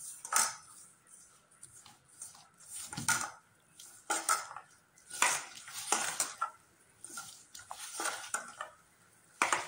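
Hands mixing and kneading milk-powder dough in a stainless steel bowl: irregular clinks and scrapes against the metal bowl, spaced about a second apart.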